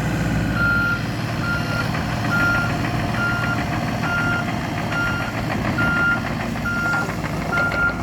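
Volvo EC27C mini excavator's travel alarm beeping steadily, a single high beep a little more than once a second, over its diesel engine running.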